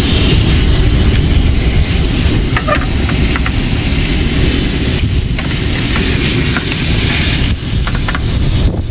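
Ribeye steaks sizzling in butter in a frying pan on a portable gas stove, under a heavy, steady rumble of wind on the microphone. A few light clicks come and go.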